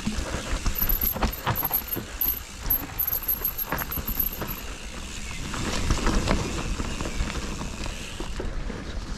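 Mountain bike rolling over a rough trail: tyres rumbling, with frequent clicks and rattles from the bike and wind on the microphone.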